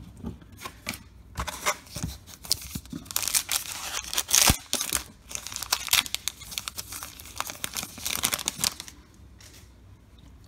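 A 2021 Allen & Ginter baseball card pack wrapper being torn open and crinkled in the hands, a run of crackling rustles, loudest about halfway through, fading in the last second or so.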